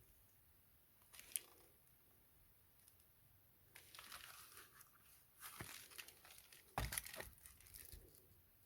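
Faint handling of packaging: crinkling and tearing in a few short bouts, with a sharp click about a second in and a couple of soft thumps later.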